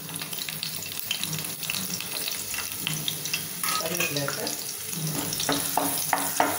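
Chopped onion sizzling in hot oil in a kadai. In the second half, a wooden spatula clicks and scrapes against the pan as the onion is stirred.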